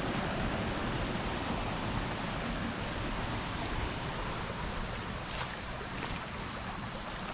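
Stream water rushing steadily, with a thin, steady high-pitched tone over it.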